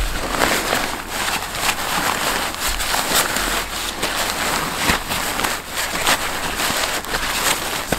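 Nylon tent fabric and its stuff sack rustling and crinkling as a folded dome tent is forced into the bag by hand, with many small crackles and scrapes throughout.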